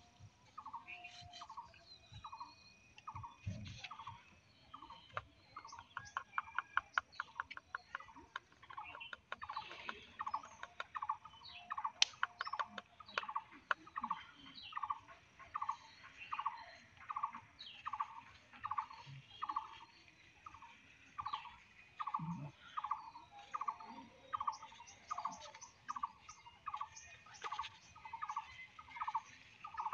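A bird calling over and over, a short call at one pitch repeated evenly about one and a half times a second. Around the middle there is a run of rapid, sharp clicks.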